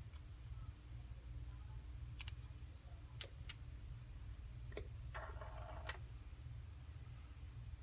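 Faint, scattered sharp clicks of small tools and tiny phone parts being handled during an iPhone screen repair, with a short buzzy rasp a little past halfway, over a low steady hum.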